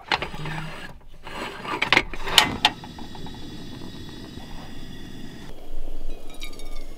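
A moka pot and portable gas camping stove being handled: clatter and rubbing, with two sharp clicks about two and a half seconds in. Then a steady hiss from the lit gas burner under the pot, and near the end coffee pouring from the moka pot into a cup.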